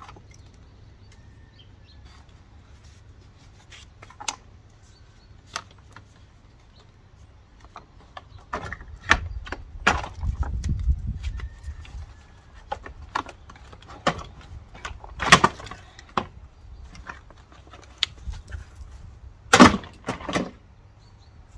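Scattered knocks, clicks and clatters of car parts and tools being handled. They are sparse at first and come more often in the second half, with a low rumble about ten seconds in and the loudest knocks around fifteen seconds and near the end.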